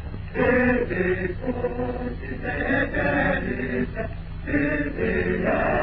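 A group of men's voices chanting in unison in rhythmic phrases, over the steady low hum of an old film soundtrack.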